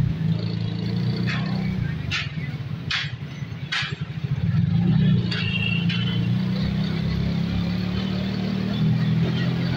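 Street traffic: the engines of motorcycles and auto-rickshaws running steadily, with several short, sharper sounds over the first six seconds.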